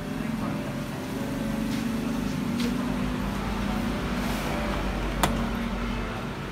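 Steady low rumble in the background, with a single sharp click about five seconds in as the mains plug is pushed into the socket on the TV's power board.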